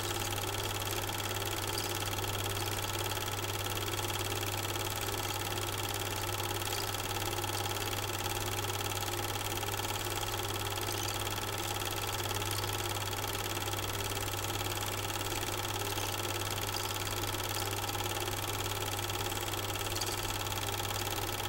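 Super 8 film projector running: a steady mechanical whirr over a low hum.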